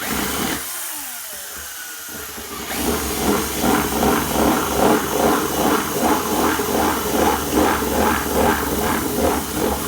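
Power drill running and cutting into a plastic tub lid to widen a hole. A steady motor whine at first, then from about three seconds in a regular pulsing roughly twice a second as the bit works the plastic.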